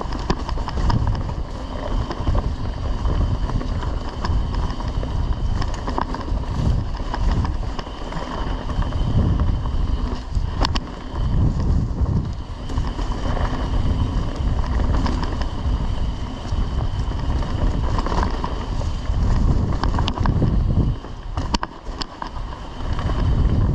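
Wind buffeting a helmet camera's microphone as a mountain bike rolls fast down a dirt forest trail, with tyres running over the dirt and a few sharp clicks from the bike.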